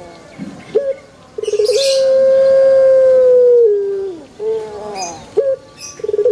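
Puter (collared dove) cooing: a quick stuttering start, then one long, clear, steady coo of about two seconds that slides down at its end, followed by a few shorter falling notes. The next long coo begins near the end.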